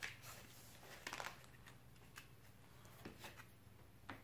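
Near silence with a faint steady low hum, broken by a few soft clicks and rustles of hands handling the longboard sander and its freshly glued sandpaper.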